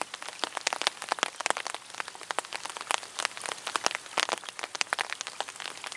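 Light rain pattering on an umbrella overhead and on the creek's surface: a dense, irregular patter of sharp drop ticks.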